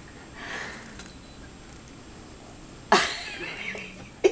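Baby fussing with a short whimpering cry about three seconds in, a fainter sound just before the first second, as he turns down a spoonful of first solid food.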